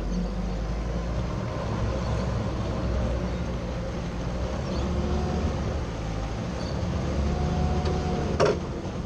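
A boat's outboard motor running at low throttle as the boat is driven up onto its trailer, with one sharp metallic clack a little before the end as the boat latch catches the bow.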